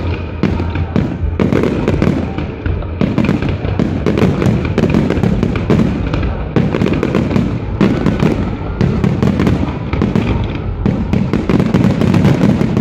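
Fireworks display: aerial shells bursting in rapid succession, many bangs overlapping into a near-continuous barrage.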